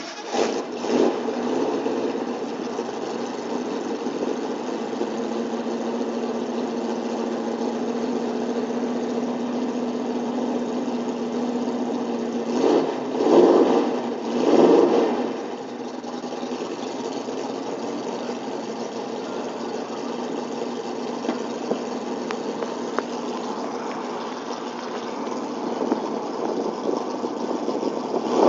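Ford GT engine idling just after starting, blipped briefly in the first second, then revved twice in quick succession about halfway through before settling back to idle, with another rev starting near the end.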